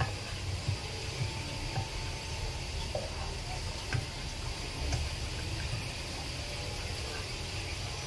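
Minced garlic sizzling in hot oil in a nonstick pan, with a steady hiss. A plastic spatula stirs it, scraping and tapping against the pan now and then.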